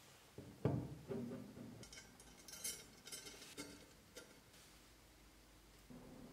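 Light knocks and small sharp clicks of metal parts being handled: a red metal model-car chassis frame and small fittings worked with a hex key. The loudest knock comes about half a second in, with a run of smaller clicks a couple of seconds later.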